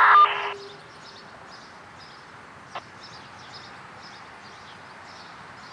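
A radio scanner's FSK data burst, a steady beep-like tone with a harsh hiss, cuts off about half a second in. A quiet outdoor background with faint high chirping follows, with one short click near the middle.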